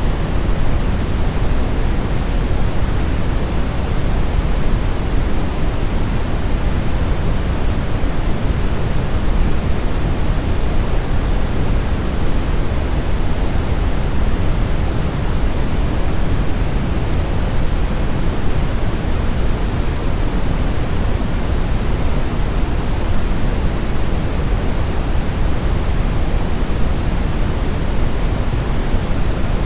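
Steady brown noise: an even, unchanging rush of noise weighted heavily toward the low end, with no events or changes.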